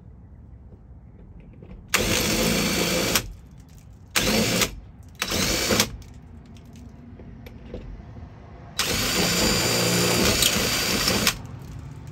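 DeWalt cordless drill with a step bit drilling into a sheet-metal van roof panel, run in four bursts: one of about a second, two short ones, then a longer run of about two and a half seconds.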